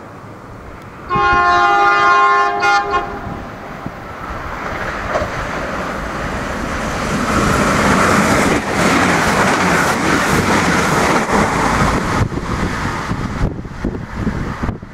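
Irish Rail 22000 class diesel multiple unit sounding its horn in one blast of nearly two seconds, then running through at speed: the rush of the passing train builds and stays loud with a rhythm of wheel clicks over the rail joints, dropping away at the very end.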